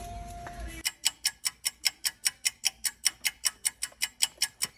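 Fast, even clock-style ticking, about seven ticks a second, starting about a second in. The store's background sound drops away as the ticking starts, the mark of a ticking-timer sound effect laid over the footage.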